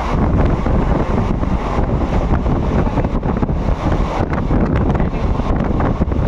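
Wind buffeting the microphone over the steady rumble of a passenger train running at speed.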